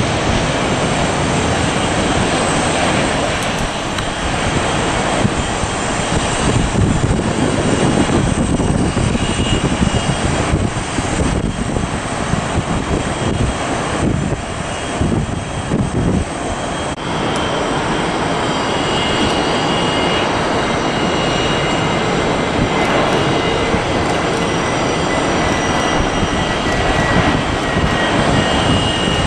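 Jet airliner engines running with a loud, steady roar as a Boeing 777 lands and rolls out on the runway. A faint, high, steady whine joins in during the second half.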